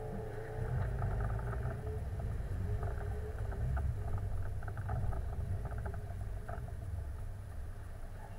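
Car engine running at low revs as the car creeps forward, a steady low rumble with scattered light clicks over it, heard from inside the open-top car.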